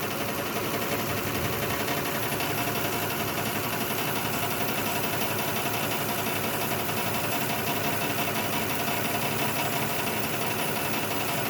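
2006 Lexus ES330's 3.3-litre V6 idling steadily while misfiring on one cylinder: number 5 is dead because its fuel injector is stuck closed.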